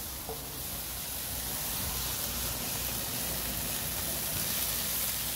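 Food frying in a non-stick pan over a gas burner, a steady sizzling hiss while it is stirred with a wooden spatula.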